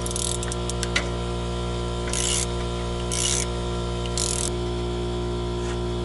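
Socket ratchet clicking in three short bursts about a second apart as it is worked back and forth on the spindle nuts of a Dana 44 front axle, after a few sharp metal clicks in the first second.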